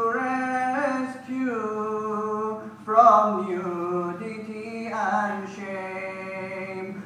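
A man singing a nasheed without instruments, holding long notes with ornamented turns between phrases.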